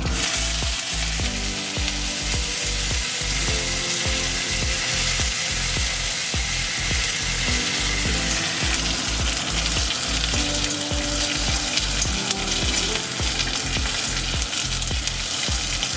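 Mustard seeds and curry leaves sizzling in hot oil in a kadai, a tempering (phoron), with some stirring. The sizzle starts suddenly as the curry leaves hit the oil and stays steady.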